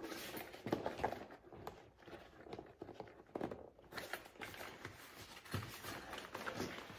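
Irregular light knocks and rustles as a fabric storage bag is handled and pressed against the plastic inner panel of a side-by-side door.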